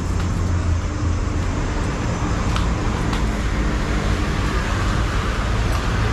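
Road traffic noise: a steady rumble of passing vehicles.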